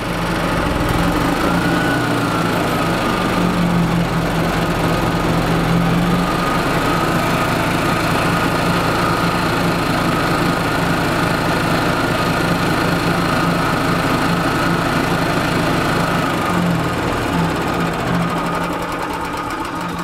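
Single-cylinder four-stroke gas engine of a 1996 Yamaha G14 golf cart running with a loud knock. It runs steadily, then slows and drops in level near the end. The mechanic puts the knock down to a hard-used engine that he suspects is low on oil.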